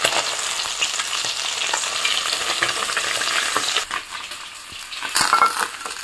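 Shingi (stinging catfish) frying in hot mustard oil in a kadai, with a steady sizzle. The sizzle drops just before 4 s in as the fish are lifted out of the oil. About 5 s in there is a brief, louder scraping clatter as the spatula slides them out of the kadai onto a plate.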